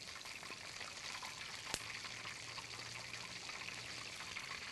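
Chicken wings deep-frying in a wok of hot oil: a steady sizzle full of small crackles, with one sharp click a little under two seconds in.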